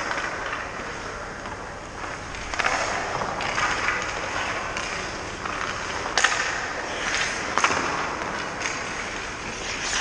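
Hockey skate blades scraping and carving on rink ice in repeated hissing strokes. Two sharp knocks come about six and seven and a half seconds in.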